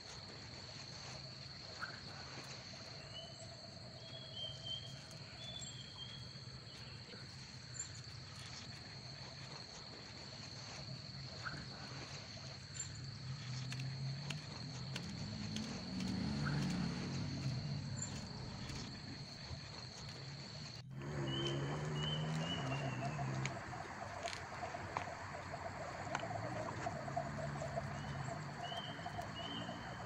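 Insects chirping as a steady background: a high, even trill that cuts off abruptly about two-thirds of the way through, with short repeated chirps over it. Scattered light taps and rustles run through it.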